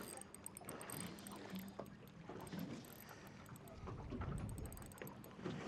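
Faint ambience on a small fishing boat, with light knocks and a low rumble swelling about four seconds in.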